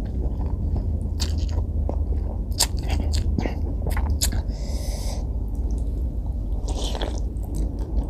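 A person slurping white noodles from a bowl of bakso soup and chewing, with short wet mouth clicks throughout. There are two longer sucking slurps about five and seven seconds in, over a steady low hum.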